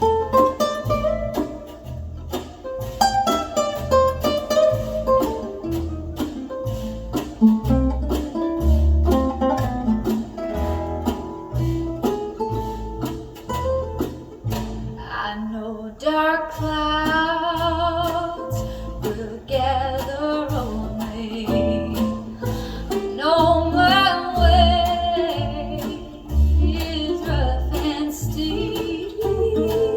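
Country-style song with guitar played back through restored Pioneer CS-410 loudspeakers: instrumental at first, then a singing voice with strong vibrato comes in about halfway.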